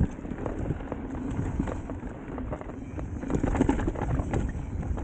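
Electric mountain bike riding down a rough dirt trail: tyre and wind rumble with frequent knocks and rattles from the bike over roots and bumps. It starts with a sharp knock and gets louder and busier about three seconds in.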